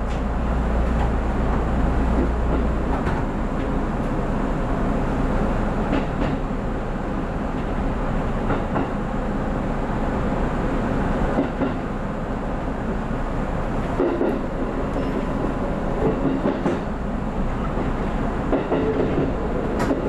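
JR 313 series electric train running along the track, heard from the cab: a steady rumble of wheels on rail with occasional clacks. A low hum fades about three seconds in.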